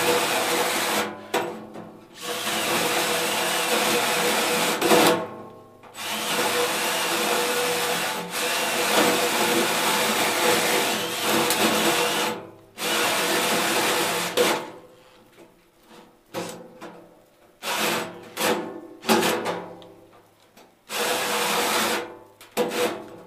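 Cordless drill driving a hole saw through the sheet-steel top of an electrical enclosure, the teeth grinding and rasping through the metal. It cuts in long runs of several seconds, then in shorter bursts with brief stops over the last third.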